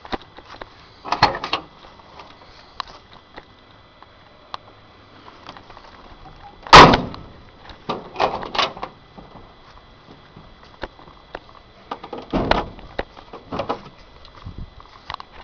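Truck door clunks and knocks from a 1987 Chevy 3500 crew cab pickup: a few separate thuds, with one hard slam about seven seconds in, much louder than the rest.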